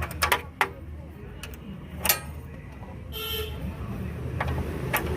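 Sharp metallic clinks and knocks of spanners working on a motorcycle's rear axle and chain adjuster nuts, over a low steady rumble. A brief vehicle horn toot sounds a little after three seconds in.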